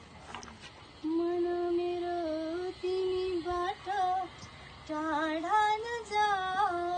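A woman singing unaccompanied, starting about a second in and holding long, wavering notes broken by short pauses for breath.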